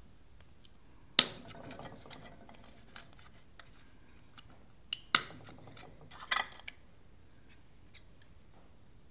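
A nail punched by hand through the thin aluminium wall of a soda can, making the ring of jet holes for a can alcohol stove. Two sharp pops, about a second in and about five seconds in, each with a brief ring from the can, and lighter clicks and scrapes of metal between them.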